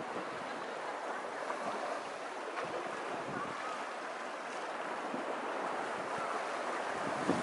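Small waves washing onto a sandy beach, a steady hiss of surf, with occasional low buffets of wind on the microphone.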